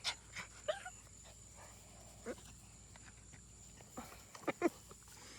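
A few faint, short animal sounds, spaced a second or more apart, over a quiet background.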